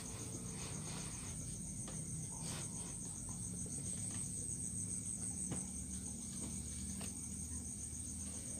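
Crickets trilling steadily, a continuous high-pitched pulsing chirr, over a low hum and a few faint taps.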